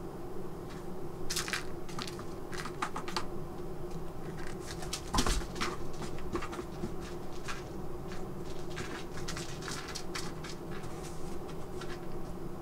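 A cat moving about, its paws and claws making short, scattered scratching and rustling noises, with one louder knock about five seconds in. A steady low hum runs underneath.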